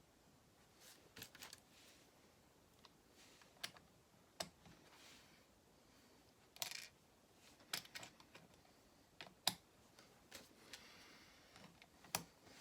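Small Lego plastic pieces clicking as they are pressed onto studs one at a time: faint, sharp clicks at irregular intervals, about eight or nine in all.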